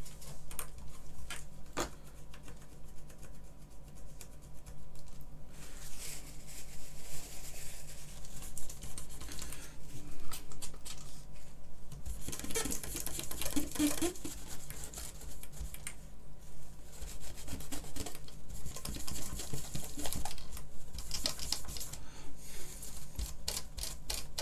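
Scraping and scratching on a keyboard circuit board with a small hand tool, with irregular clicks and rubbing of hands across the board. The scraping grows louder about halfway through and comes in a dense run of scratches near the end, over a steady low electrical hum.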